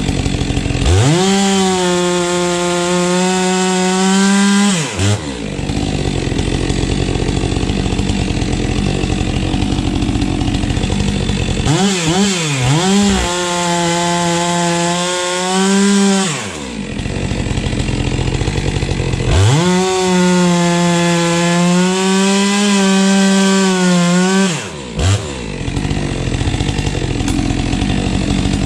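STIHL MS 462 two-stroke chainsaw bucking firewood logs: it revs to full throttle for three cuts of about four seconds each, its pitch sagging slightly under load, and drops back to a lower, steady running note between cuts.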